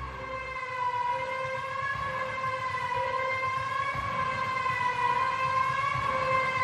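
A single sustained synth note from the background music, wavering slowly in pitch with no beat or bass under it, gradually getting louder.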